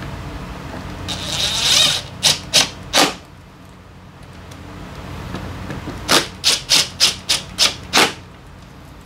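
Quick rubbing strokes on a scooter's air filter element. There is a rising rush of noise, then three quick strokes, and a few seconds later a run of seven strokes, about three a second.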